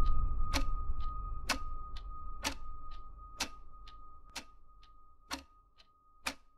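Sound-effect clock ticking about once a second, over a thin steady high tone and a low rumble that dies away.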